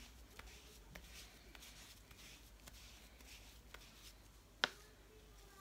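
Faint scuffing of a cotton pad being rubbed over the back of a hand, with a few light clicks and one sharp click about four and a half seconds in.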